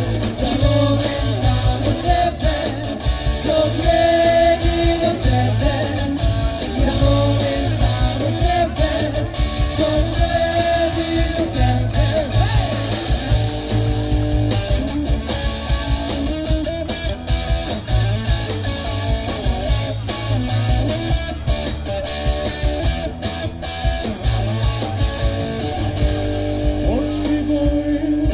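Live rock band playing loud and steady: electric guitar, bass and a drum kit, with a singer on vocals.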